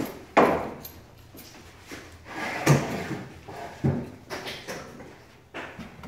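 Irregular knocks and thumps from work with hand tools at an electrical box set in a wall opening: about five separate hits, unevenly spaced, the loudest about half a second in and near three seconds in.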